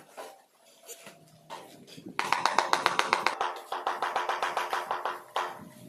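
Steel trowel working tile adhesive over the back of a ceramic floor tile: a quick run of scratchy scrapes and taps that starts about two seconds in and lasts about three seconds.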